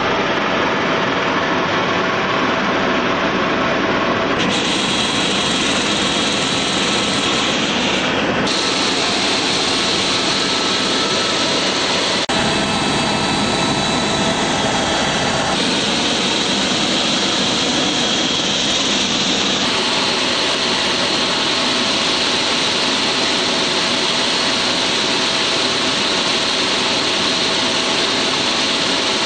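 Helicopter turbine and rotor noise heard from inside the cabin in flight: a loud, steady whine over a dense rushing noise, its tone shifting abruptly several times.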